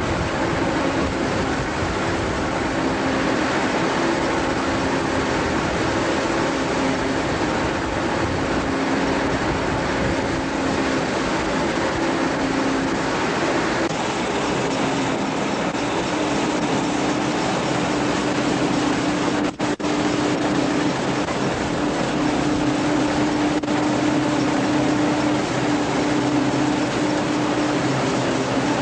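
An old belt-driven threshing machine running steadily, powered by a tractor: a continuous mechanical clatter and drone with a steady hum whose pitch shifts slightly about halfway through.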